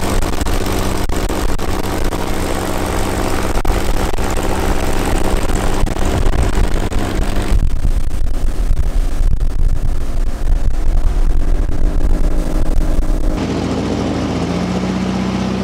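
Outboard motor of a Ranger bass boat running at speed across open water, its drone mixed with wind and rushing water. Near the end the sound cuts to an airboat's engine and propeller running steadily, with a strong low hum.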